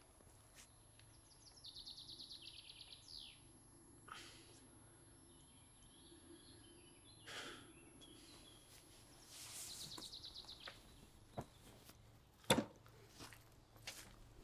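Forest ambience with a songbird's rapid trill, heard about two seconds in and again near ten seconds. A few short knocks and rustles come in between; the loudest is a sharp knock about twelve and a half seconds in.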